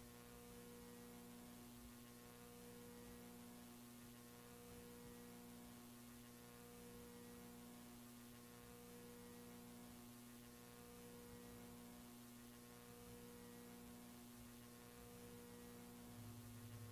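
Near silence with a faint steady electrical mains hum, one of its tones pulsing on and off about once a second.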